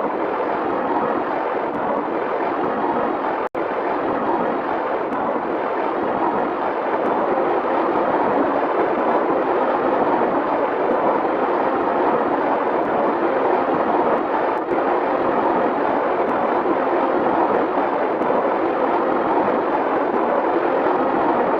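A steady, continuous rushing noise with no clear pitch, cut off for an instant about three and a half seconds in.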